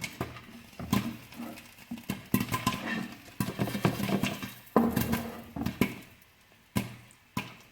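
Popcorn kernels popping in a hot pan: irregular sharp pops, several a second, that thin out to a few scattered pops near the end, a sign the batch is nearly done.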